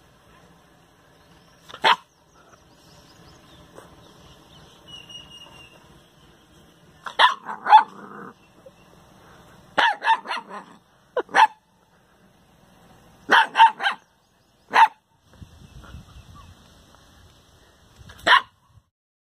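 A dog barking in short, sharp barks, some single and some in quick runs of two to four, with pauses between.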